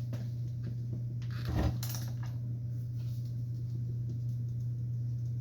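A few light metallic clicks and a knock from hands working on a chop saw's bolts and adjustment, over a steady low hum.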